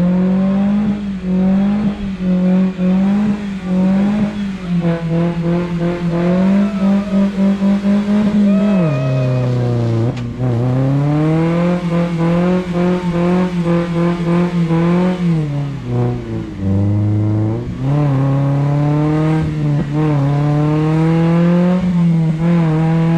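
An SUV engine revving hard under load, held at high revs for long stretches with the pitch stepping and sliding as the throttle is worked, dipping sharply twice. This is the sound of the vehicle straining to climb a steep, overgrown slope off road.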